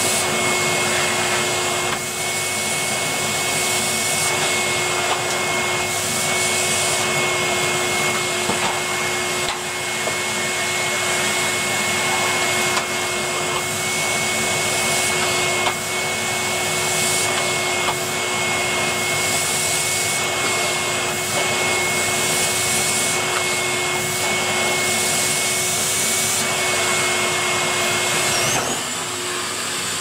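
Canister vacuum cleaner running steadily with a constant motor whine as its floor head is pushed back and forth over a thick-pile rug. About a second before the end the steady whine stops and the sound changes.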